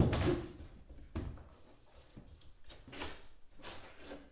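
A sheet of 12 mm plywood being handled and turned on its edge on the floor: a few knocks and scrapes of the board, the loudest right at the start, others about a second in and around three seconds in.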